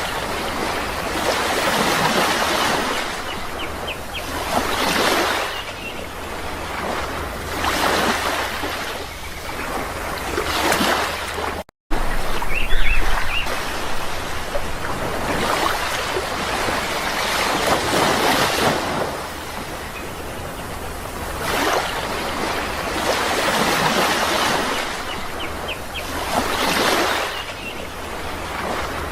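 Sea waves washing ashore, each surge swelling and fading every two to three seconds. The sound cuts out for an instant about twelve seconds in, then comes back with a loud surge.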